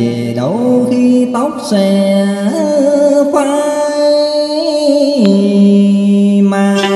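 Music from a Vietnamese song: a melody of sliding, bending notes over long held tones.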